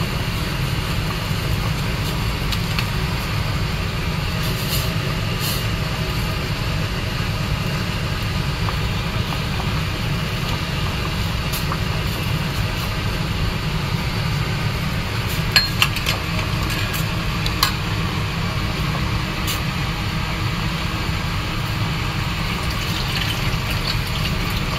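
Stainless-steel pot of soup at a rolling boil, a steady bubbling. A few sharp metal clinks about two-thirds of the way through, a ladle knocking against the pot.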